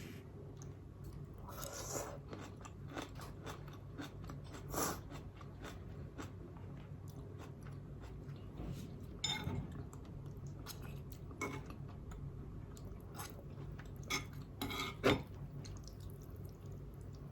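Close-miked chewing of Nongshim non-fried spicy instant noodles, with irregular short wet clicks and smacks, the loudest about 5, 9 and 15 seconds in. A low steady hum runs underneath.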